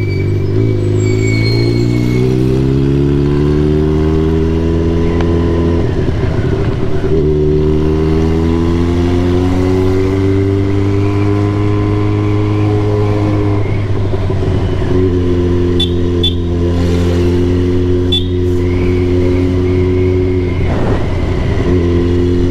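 Motorcycle engine heard from on the bike, pulling through the gears. The pitch climbs steadily, breaks at a gear change about six seconds in, climbs again, and drops at a second shift about fourteen seconds in. It then holds a steady note at cruising speed, with a brief dip near the end.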